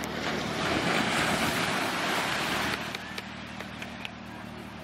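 Small waves breaking gently and washing up a sandy beach: a wash of surf that swells within the first second and falls away suddenly about three seconds in.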